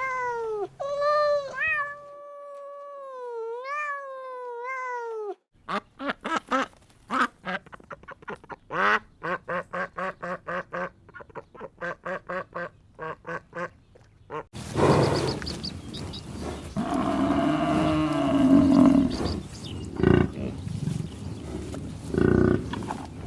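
A string of different animal calls, one after another. First a cat meows in long calls that bend up and down in pitch. About five seconds in, a fast run of short repeated calls starts, and from about halfway through comes a rougher, harsher calling.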